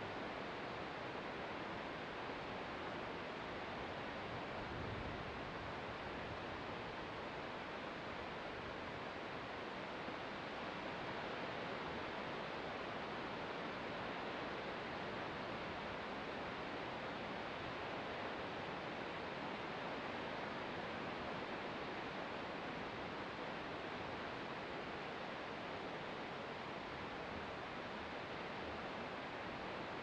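Ocean surf as a steady, even wash of noise, with no single wave breaking out from it.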